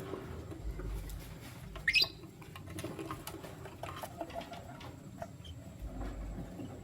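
A lovebird gives one short, sharp chirp about two seconds in, over faint scattered scratching and clicking.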